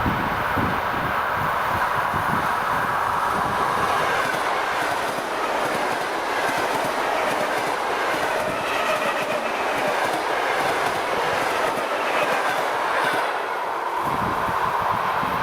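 ED4M electric multiple unit train running past: a steady rumble and hiss of wheels on rails, with knocks from the wheels over the rail joints in the first few seconds and again near the end.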